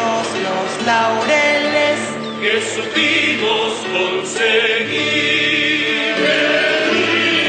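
A group of voices singing together as a choir, with instrumental accompaniment.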